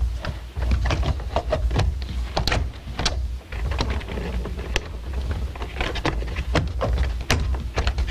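Irregular clicks and knocks of hard plastic hot tub control panel parts being handled and fitted into place, over a steady low rumble.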